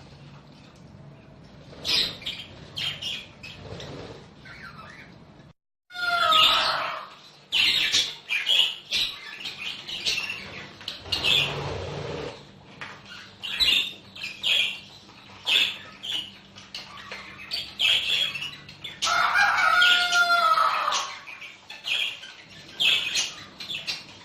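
A flock of budgerigars chirping and chattering, with many short, sharp calls overlapping one another and a few longer warbling calls that glide up and down in pitch. The sound breaks off for a moment about six seconds in.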